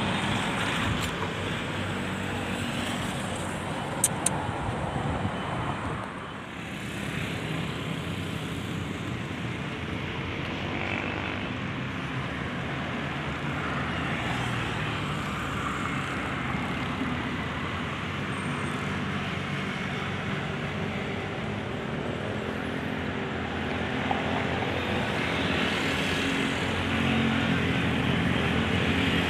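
Steady engine rumble, with two sharp clicks about four seconds in and the level slowly rising near the end.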